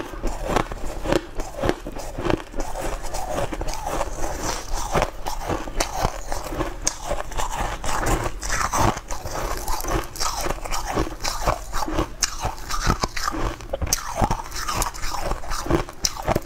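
Frozen ice cake being bitten and chewed close to the microphone: a dense, irregular run of crisp crunches.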